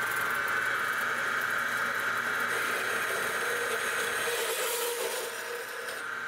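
Small horizontal metal-cutting band saw running steadily, its blade cutting through a half-inch copper pipe held in the vise: a steady whine that begins abruptly.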